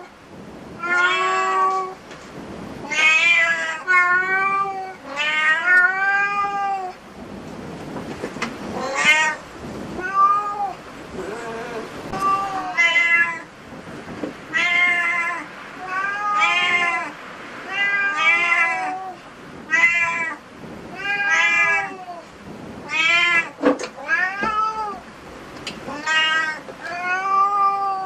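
A domestic cat meowing over and over, about one meow every second or two, each call rising and then falling in pitch.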